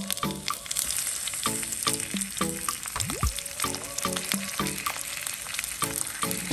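Chopped garlic and tomato slices sizzling in hot oil in a frying pan, with a steady crackling hiss as more slices are laid in. Light background music of short repeated notes plays over it.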